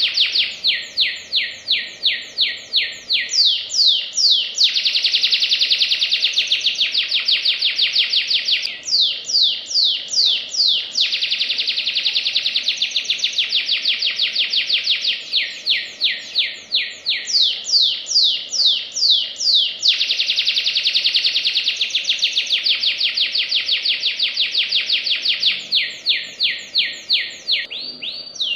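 Domestic canary singing a long, fast, unbroken song: runs of quickly repeated falling notes, about four a second, alternate with dense, rapid trills held for several seconds at a time.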